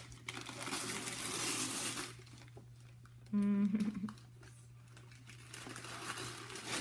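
Gift-wrapping paper being torn and crumpled as a present is unwrapped, rustling in spells at the start and again near the end. A short hummed voice sound breaks in about halfway through.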